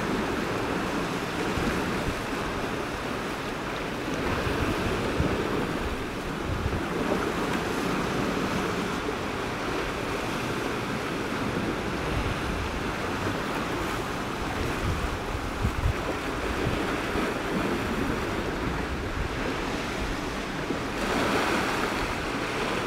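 Sea waves washing and breaking against shoreline rocks, with wind buffeting the microphone in a low rumble. A larger surge of water comes near the end.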